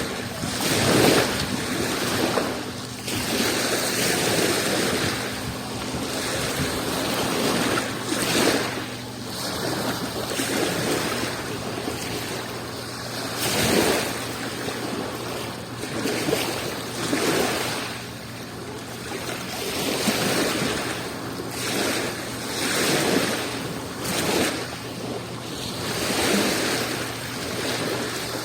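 Adriatic Sea waves washing onto the shore, a steady wash of surf that swells and falls back every second or two.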